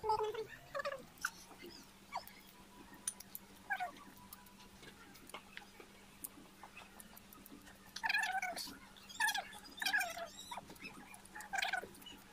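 Short, high animal calls, each falling in pitch: a few in the first seconds and a cluster of four or five near the end, with small scattered clicks between them.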